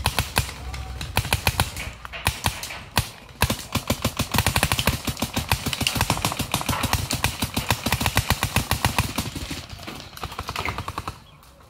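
Paintball gun firing rapid strings of shots, many a second, with brief pauses, tailing off near the end.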